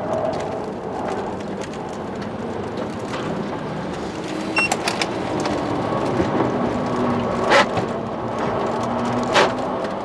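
Cabin noise of a Tesla Model 3 at track pace: a steady rush of road and tyre noise under a faint electric motor whine that falls slowly in pitch in the second half. A short beep comes about halfway, and two sharp knocks come near the end, about two seconds apart.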